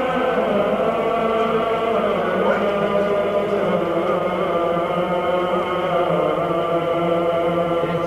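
Choral chant: several voices singing long held notes that change pitch slowly.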